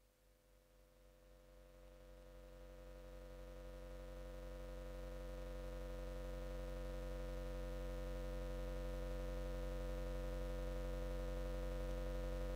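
Steady electrical hum, a low buzz with many even overtones, fading in from near silence about two seconds in and slowly growing louder.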